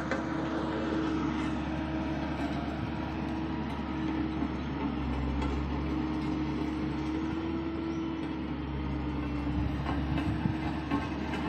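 Road roller's diesel engine running steadily as the roller rolls, a constant drone over a low rumble, with a few sharp clicks near the end.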